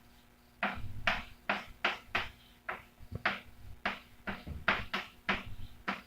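A pen writing by hand, a quick run of short strokes and taps, about two or three a second, with small knocks on the writing surface.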